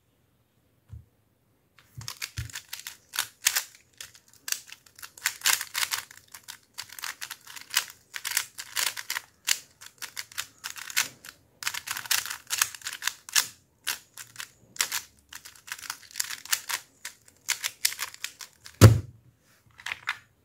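A 3x3 speed cube turned fast by hand: rapid plastic clicking and clacking in quick bursts with short pauses, for about seventeen seconds. Near the end, a single loud thump as both hands slap down on the timer pads to stop it.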